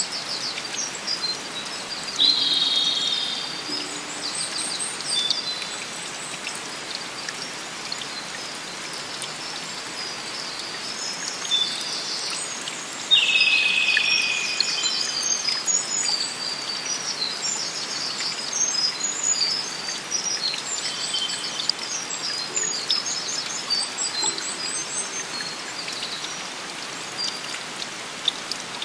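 Several forest birds chirping and calling over a steady rush of flowing stream water. The loudest is a longer call a little under halfway through, lasting about a second and a half and dipping slightly in pitch.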